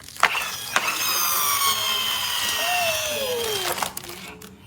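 Friction-powered toy car's flywheel and gears: a couple of clicks, then a loud whir whose pitch falls steadily as the flywheel spins down over about three seconds.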